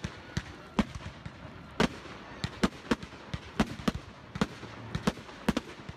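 Fireworks display: aerial shells bursting in more than a dozen sharp, unevenly spaced bangs.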